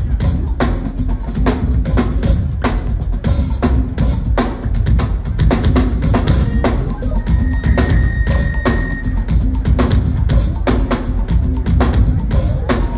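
Live rock band playing: a drum kit drives a busy beat of heavy kick drum and snare hits under keyboard parts, with a single high note held for about a second and a half just past the middle.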